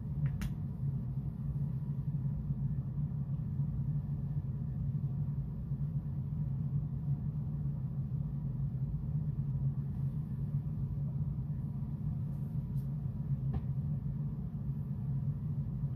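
Steady low hum, with a few faint clicks about half a second in and twice near the end.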